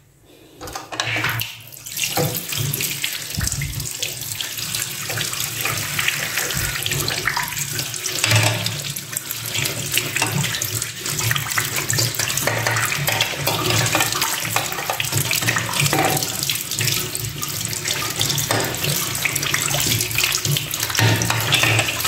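Tap water running into a sink, splashing over plastic washing-machine lint filters being rinsed by hand under the stream; it comes on about a second in.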